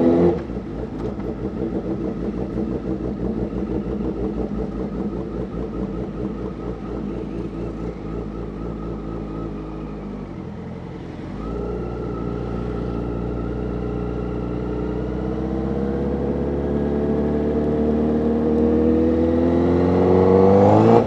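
2012 Honda CBR1000RR's inline-four engine through an SC Project aftermarket exhaust, heard from the rider's seat and described as raspy. The revs fall sharply at the start, as after an upshift, and stay lower for about ten seconds. After a brief dip the engine pulls with a slow, steady rise in pitch and loudness until the revs fall sharply again at the end.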